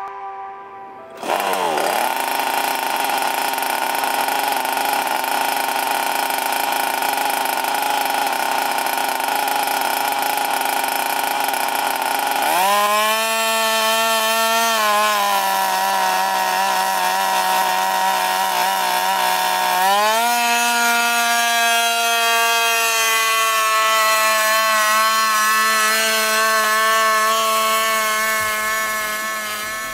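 TES-1200 hexacopter's air-cooled EFI petrol engine generator running together with its six rotors, a steady engine drone with a strong pitch. It cuts in about a second in, rises in pitch around twelve seconds in, dips briefly, rises again near twenty seconds, then fades out at the end.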